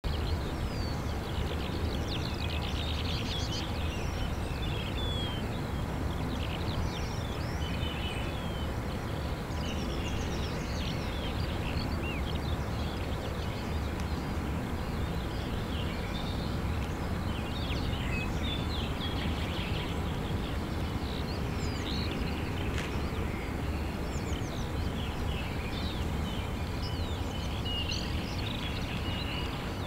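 Small birds chirping and singing in many short calls over a steady low rumble of outdoor background noise.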